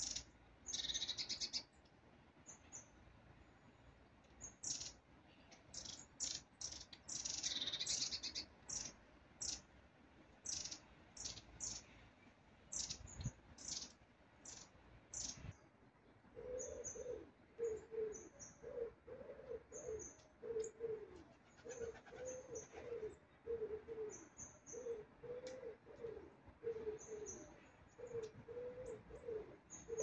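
Long-tailed tits calling: high, thin, repeated notes with short trills. About halfway through, a pigeon starts cooing in a steady run of low notes, about two a second, under the continuing high calls.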